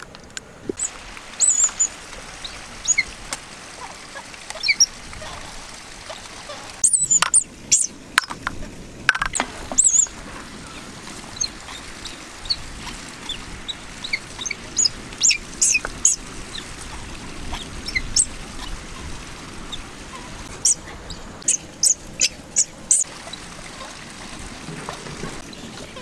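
Scattered sharp pops and crackles from an open wood fire and eggs cooking in a clay pot, over a steady faint hiss, with short high bird chirps throughout. The pops come in two busier clusters, about a third of the way in and again near the end.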